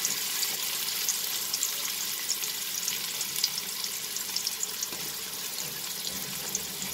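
Sliced onions frying in hot oil in a pot, a steady sizzle with scattered small crackles.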